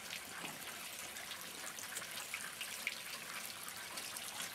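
Water running and trickling steadily, with faint scattered ticks: methane-laden water flowing into a jug, the gas that comes out of it collecting and being burned off at a tube.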